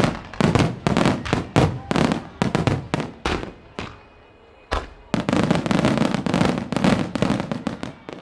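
Rapid barrage of aerial firework shell bursts from a starmine, a few sharp bangs a second. The barrage pauses briefly about four seconds in, resumes with one big bang and another quick volley, and tails off near the end.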